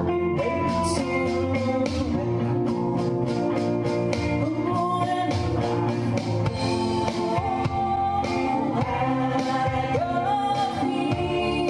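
Live rock band playing: electric guitars, bass and drums, with singing over them.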